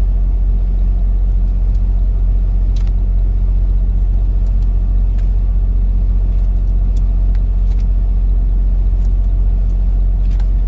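A steady low rumble, even in level, with a few faint clicks scattered through it.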